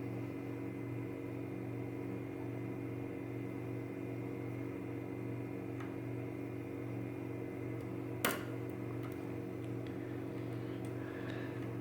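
Steady low hum throughout, with faint ticks of a lock pick working the pins of a Mul-T-Lock Interactive cylinder and one sharp click about eight seconds in.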